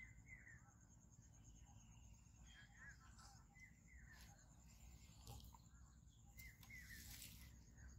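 Near silence: faint open-air ambience with a few short, scattered bird chirps and a faint steady high tone.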